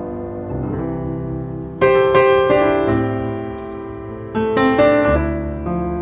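Background piano music: gentle chords struck every second or so, with louder chords about two seconds in and again near the end.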